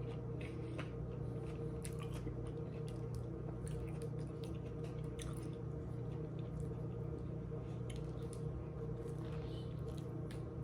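Chewing a mouthful of Subway tuna sub: soft, wet squishing and small mouth clicks, over a steady low hum.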